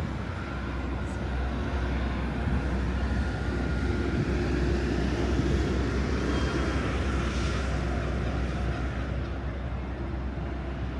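A vehicle going past, its engine sound building to a peak about halfway through and then fading, over a steady outdoor city background.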